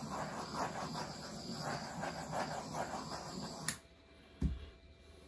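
Breath blown through a drinking straw in a string of uneven puffs, stopping with a click after about three and a half seconds. A low thump follows about a second later.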